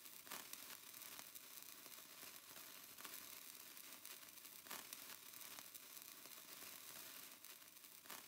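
Near silence: faint steady hiss of room tone, broken by four soft, short clicks spread well apart.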